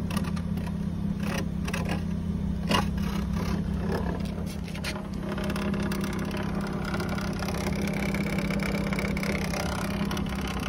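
Nissan Altima engine idling through a homemade exhaust extension of taped-together sheet-metal duct pipe: a steady low drone. A few sharp clicks and scrapes come in the first half.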